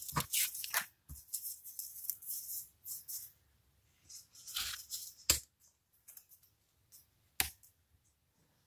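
Paper rustling and crinkling as small cut paper pieces are handled and shuffled by hand, densest in the first few seconds, with a couple of sharp clicks or taps later as pieces are set down on the craft mat.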